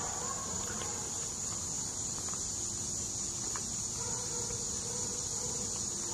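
Steady high-pitched chorus of insects singing.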